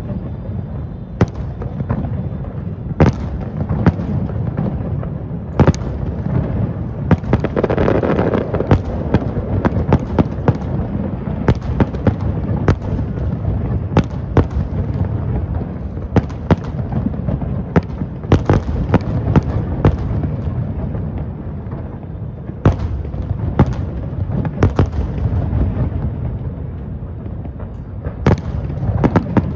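Fireworks display: a continuous low rumble of booming aerial shells, with many sharp bangs and cracks at irregular intervals.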